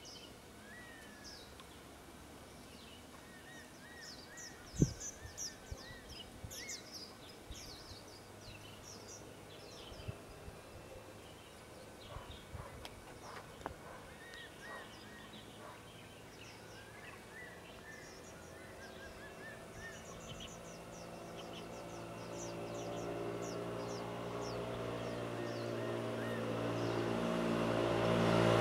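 Birds chirping and calling, with short high chirps and some whistled notes, and a single sharp click about five seconds in. In the last third a motor vehicle's engine approaches, growing steadily louder toward the end.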